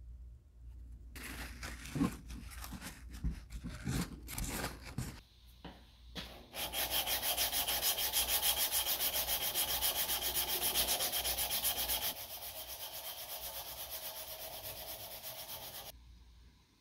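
Hand sanding of a cast resin lure body with a strip of abrasive cloth, pulled back and forth across it. Irregular scraping strokes at first, then about halfway in fast, even, steady strokes, which turn lighter for the last few seconds before stopping.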